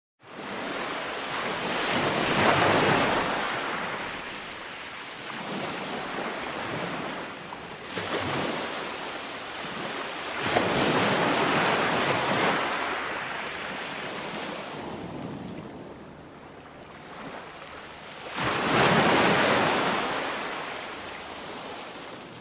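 Ocean waves breaking on a shore and washing back: three surges about eight seconds apart, the middle one breaking suddenly about ten seconds in.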